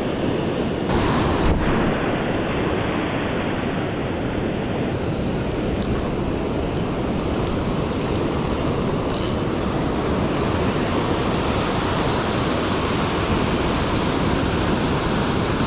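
Ocean surf washing on the shore with wind buffeting the microphone: a steady, even rush of noise.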